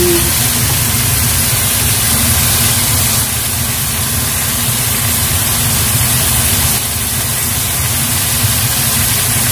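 Steady, even hiss with a low hum underneath from stovetop cooking of the pork filling, unchanged throughout.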